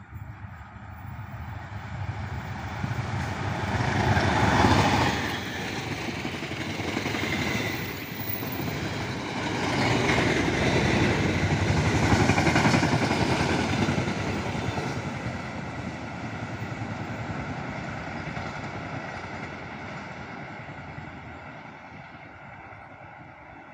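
A diesel-electric locomotive and its train of passenger carriages pass close by at speed. The locomotive is loudest about four to five seconds in. The carriages' wheels then run loudly over the rails for several seconds, and the sound fades away as the train pulls off.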